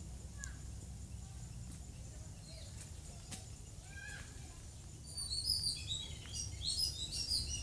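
Wild birds chirping and calling: a few scattered short calls at first, then a busy run of high chirps and trills from about five seconds in, over a steady low background noise.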